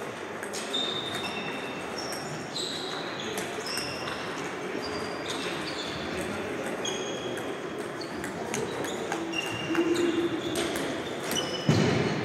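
Table tennis play in a large hall: the plastic ball clicking off bats and tables, many hits each with a short high ring, from several tables at once, over background voices. Near the end comes one loud, low thump.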